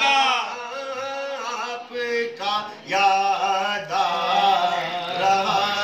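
Men singing a naat (devotional praise poem) in long drawn-out phrases.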